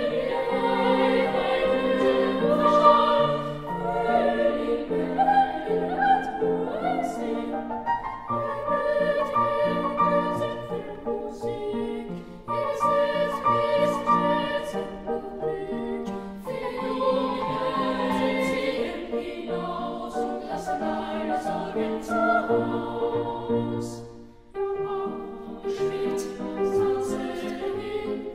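Classical choral music: a choir singing sustained, slowly changing notes, with a brief drop in level about 24 seconds in.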